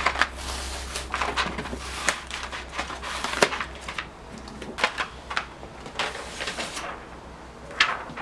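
A plastic Cricut cutting mat being peeled away from a sheet of iron-on vinyl and handled: irregular crackling and rustling of the sheets, with scattered sharp taps.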